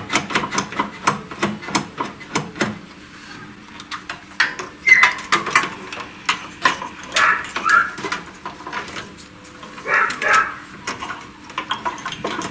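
Small metal parts and a toothed drive belt being handled and fitted inside a laser cutter: a quick run of sharp clicks and rattles in the first few seconds, then sparser knocks and scrapes.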